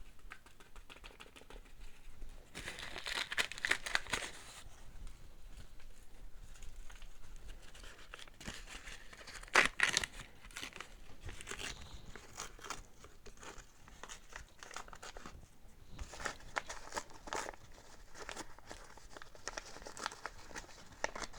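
Seed packets crinkling and rustling in irregular handling noises as flower seeds are shaken out for sowing, with a few louder rustles scattered through.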